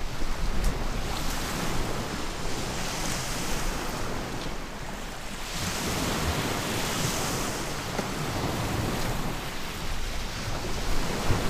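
Waves breaking and washing up a pebble shore, with wind buffeting the microphone as a low rumble. The surf hiss swells about three seconds in and again about seven seconds in.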